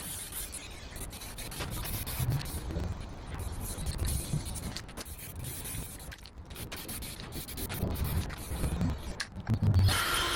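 Irregular rubbing strokes against a surface, as in hand sanding or scrubbing a part, with short pauses between bursts of strokes.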